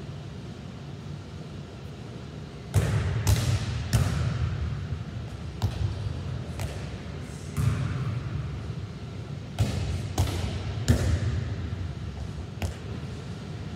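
A volleyball being passed against a wall in a gym: about ten sharp slaps of the ball off the forearms and the wall, starting about three seconds in, each echoing in the large hard-walled hall.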